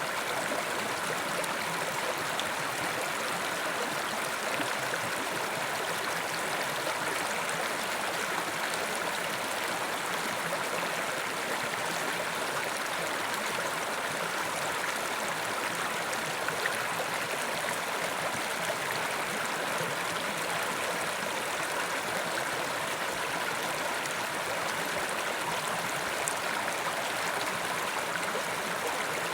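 Carpathian mountain river running steadily over rocks, a continuous rushing and gurgling of flowing water.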